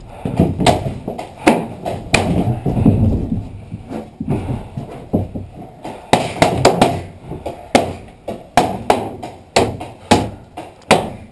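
Paintballs striking the plywood walls of a wooden bunker building: irregular sharp knocks, a few at first and then coming thick and fast in the second half.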